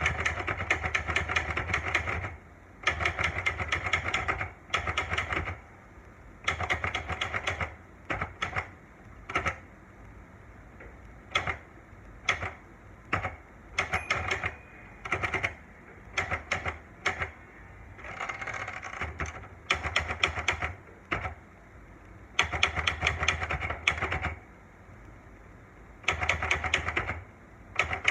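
Olivetti Lettera 92 manual portable typewriter being typed on: rapid runs of key strikes lasting a second or two each, broken by short pauses, with slower single strikes in the middle stretch.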